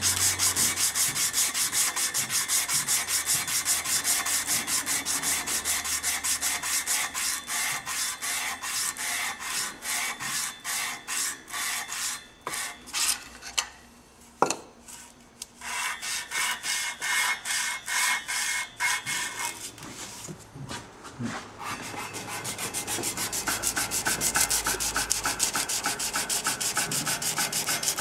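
Small hand-held abrasive block rubbed back and forth over the welded joint of a steel band saw blade in quick, even strokes, several a second, grinding the joint down flush with the blade's thickness. The strokes stop briefly about halfway through, with a single sharp knock, then start again.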